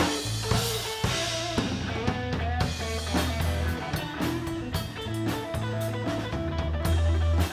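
Live rock band playing an instrumental break with no singing: guitar over a steady drum-kit beat.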